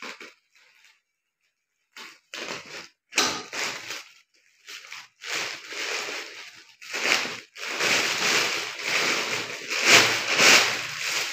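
Plastic courier mailer bag being torn open and handled, crinkling and rustling in irregular bursts that grow denser and louder, loudest near the end.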